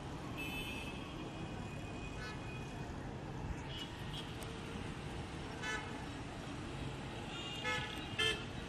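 Vehicle horns tooting in short blasts, about six times, over the steady hum of jammed street traffic; the loudest toots come near the end.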